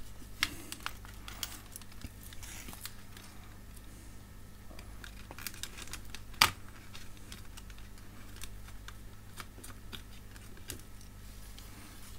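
Small plastic clicks and rustling from hands handling a reversing-camera LCD monitor's opened plastic housing and foam padding during disassembly, with one sharper click about six seconds in. A faint steady low hum runs underneath.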